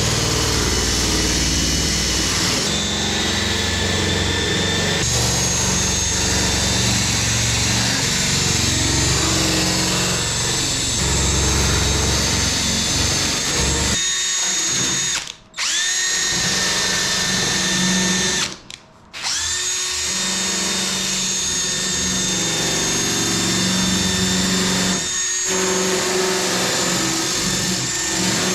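Handheld rotary power tool spinning an abrasive bit against aluminum, deburring the sharp edges of lightening holes in a wing spar: a steady high motor whine over an uneven grinding rumble. About halfway through it stops twice for a moment and winds back up each time.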